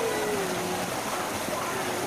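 Steady rush of running water, with faint distant voices in the background.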